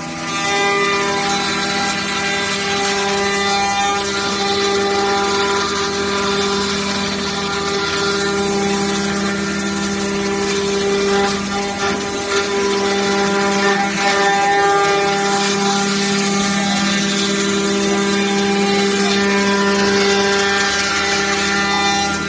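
Spindle motors of a two-head, five-axis CNC router whining steadily as they carve wood. Their pitch dips briefly about twelve and again about fifteen seconds in.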